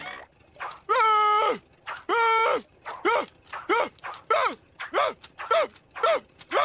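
A cartoon character screaming in panic: a run of about ten high-pitched yells, two long ones followed by shorter ones coming quickly, each one dropping in pitch as it breaks off.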